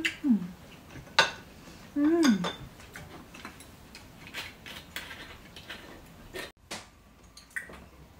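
Tableware clinks and taps at a meal, with two short hummed 'mm' voice sounds, one at the start and one about two seconds in. Later comes a run of small clicks as a glass soju bottle's screw cap is twisted open.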